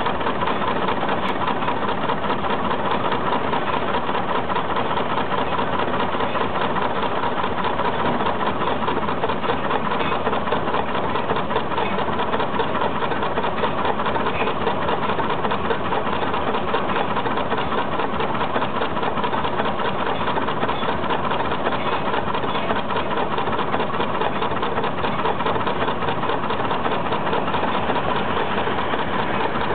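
Steam traction engine running steadily under belt load, driving a sawmill: a fast, even mechanical clatter that keeps the same pace throughout.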